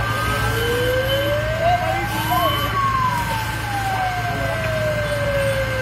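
Fire engine siren wailing in one slow rise and fall, peaking about halfway through. Under it runs a steady high tone and a low, even engine hum.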